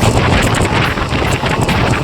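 Wind buffeting the microphone over the steady running rumble of a passenger train of ICF coaches moving at speed.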